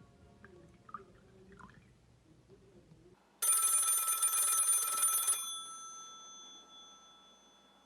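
Telephone bell ringing once for about two seconds, starting suddenly a little past the middle, then its tones dying away slowly.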